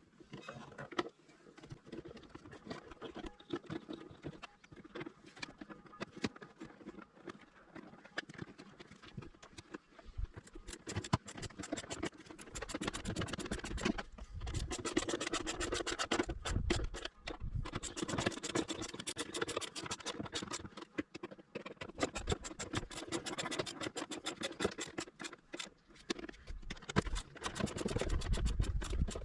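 Scratching and rapid clicking of hand work on the car's air box, with the cover being refitted and its screws put back in. The clicking becomes dense from about a third of the way in.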